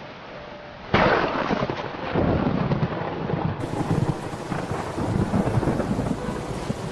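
Thunderstorm: a sudden thunderclap about a second in, followed by rolling thunder over steady rain.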